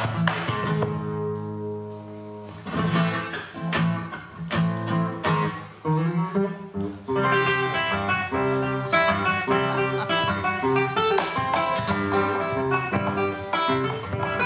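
Classical guitar playing an Argentine gato, with a bombo legüero drum beating along in the first half. From about seven seconds in the guitar plays a busy passage of fast plucked notes.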